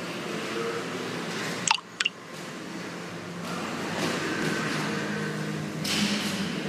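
Steady humming background noise, with two short sharp sounds close together about two seconds in.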